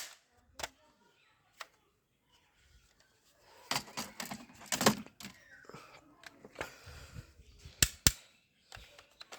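Plastic toy gun being handled: scattered sharp clicks and rattles, busiest midway, then two loud sharp snaps about eight seconds in.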